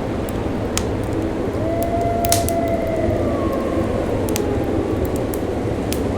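Wood fire crackling with scattered sharp pops over a steady hiss of wind. Through the middle comes a faint, drawn-out tone that slowly falls in pitch.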